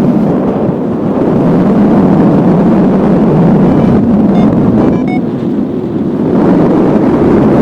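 Strong wind rushing and buffeting over the microphone of a paragliding pilot in flight, a loud steady rumble that dips briefly about five seconds in.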